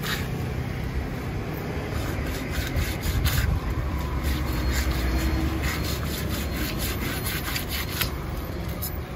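A knife scraping the scales off a large rohu fish in quick repeated strokes, the blade rasping along the skin as scales tear loose. A steady low rumble runs underneath.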